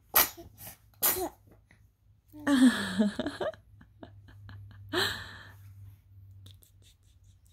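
Young baby sneezing: a few small, sharp sneezes over several seconds, with a louder drawn-out voiced sound falling in pitch between them.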